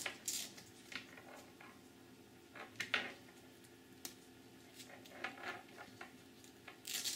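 Faint handling noise from a skin conductance sensor's cable and finger electrodes being picked up and fitted: scattered light clicks and rustles, with a louder click about three seconds in and another near the end.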